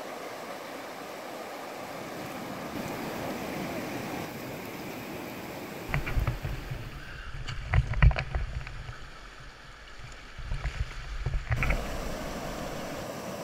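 River rapids rushing, a steady hiss of white water. From about six seconds in until shortly before the end, a strong low rumble with several sharp knocks takes over, like wind and handling on the microphone, before the even rush returns.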